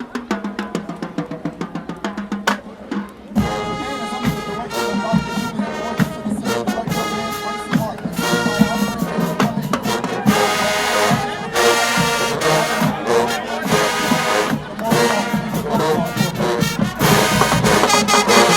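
HBCU marching band on the field: a fast drum-line passage for about the first three seconds, then the full brass section comes in playing loud chords over the drums.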